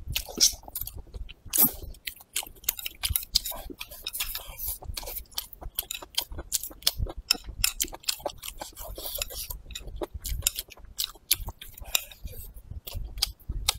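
A person chewing braised meat up close to the microphone: a steady run of many short mouth clicks and smacks.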